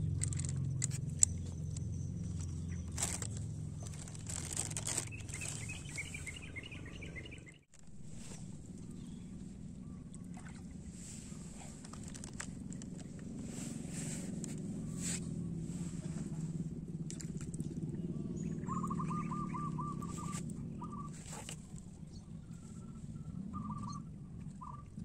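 Short trilled bird calls, each a quick run of pulses, over a steady low rumble and scattered sharp clicks.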